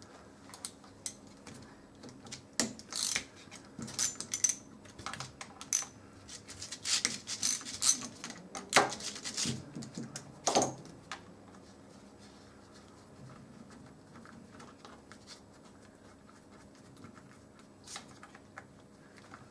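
Socket ratchet clicking in short runs, with metal tools clinking, as the bolts holding the gearbox to a motorcycle starter motor are undone. The clicks are irregular and come mostly in the first ten seconds or so, with only a few later.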